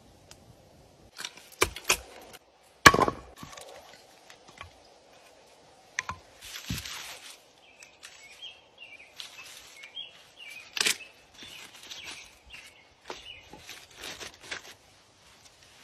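Split wood slats and small logs set down and knocked against each other on stones, making a scatter of sharp wooden clacks and knocks with some rustling. The loudest knock comes about three seconds in.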